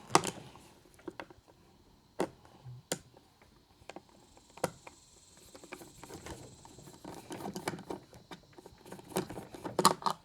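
Scattered small clicks, taps and scrapes of a hand tool and fingers working the screws out of an Uhlmann fencing reel's plastic housing, busier toward the end.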